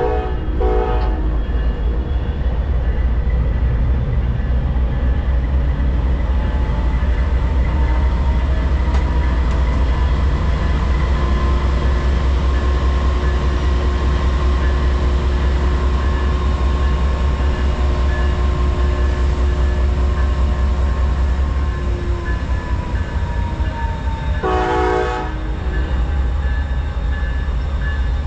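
Amtrak diesel passenger locomotives pulling the train away from the station, a heavy steady low engine rumble with a tone that slowly rises and falls as the engines load up. The horn sounds two short toots right at the start, the two-short signal for releasing brakes and proceeding, and one more blast of about a second near the end.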